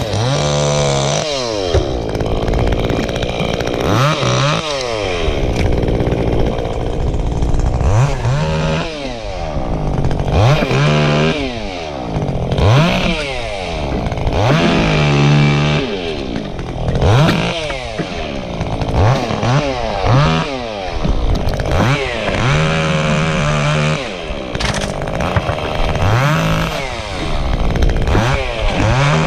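Chainsaw engine revved up to full throttle and let back down to idle over and over, about every two seconds, while cutting pieces out of a storm-damaged tree.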